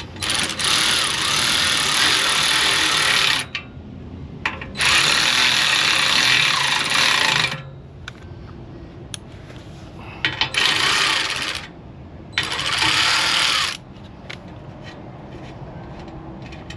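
Power tool running in four bursts, two long and two short, as it tightens the nuts on the motorcycle's exhaust mounts.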